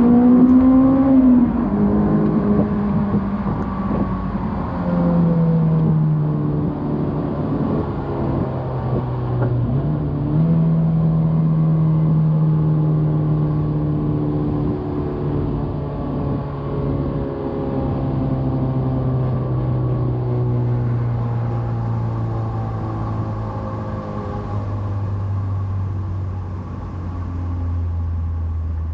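2001 Honda S2000's 2.0-litre four-cylinder engine running under way, its pitch changing in a few steps during the first ten seconds with a sudden rise at about ten seconds. After that the revs fall slowly and steadily as the car slows.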